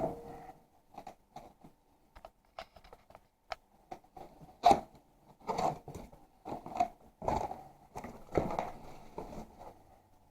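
Cardboard box and packaging being opened and handled: irregular crinkles, scrapes and knocks, with several louder ones in the second half.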